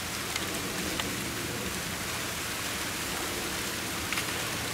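Steady, even watery hiss of shallow muddy pond water being splashed as people wade and grope through it by hand, with a few faint ticks.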